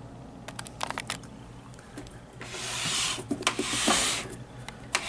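Handling noise: a few light clicks, then rubbing and rustling with more clicks from about two and a half seconds in, as things are moved about by hand.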